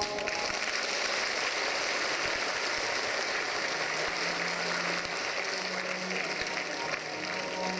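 Audience applauding steadily, starting just as the performance music stops.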